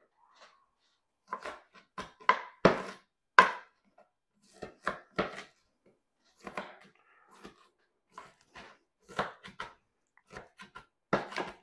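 Knife chopping an onion on a plastic cutting board: irregular sharp strikes, some in quick runs of two or three, with short pauses between.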